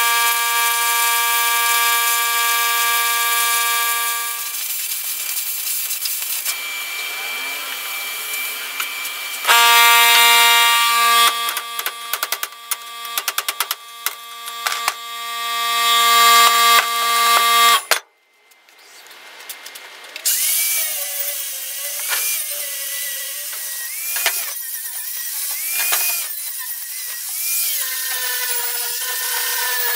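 Plasma cutter cutting steel plate: a steady high whine with sparks hissing, cutting out for a few seconds and then starting again, now with a run of sharp clicks and knocks. After a short break, an angle grinder with an abrasive disc grinds a freshly cut steel circle, its pitch dipping and recovering again and again as the disc bears on the metal.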